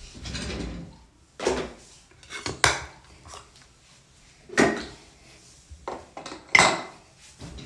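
Small hard objects clattering and clacking against a hard countertop as things are rummaged through and set down: a rattle in the first second, then about four separate sharp clacks a second or two apart.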